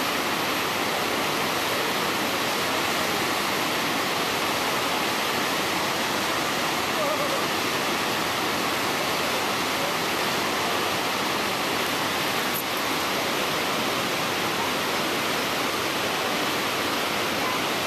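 Whitewater of the Snake River's Wild Sheep Rapids rushing, a steady, unbroken noise of churning water.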